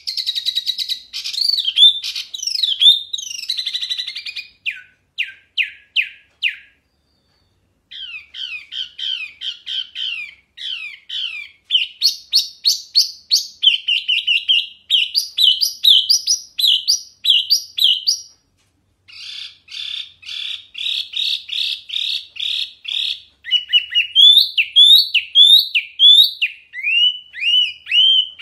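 Wambi mini, a small caged songbird, singing loud and clear. Its song is a long run of rapid chattering phrases and series of quick, high, descending whistled notes, broken by short pauses twice.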